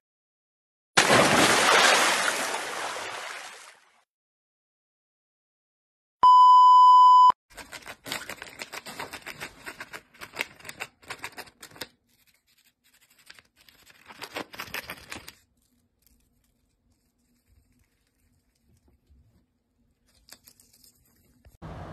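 A sudden rush of hiss fading out over about three seconds, then a steady one-second beep. After that comes crackling paper rustle in short bursts as a rosy-faced lovebird pecks and tugs at a paper bag.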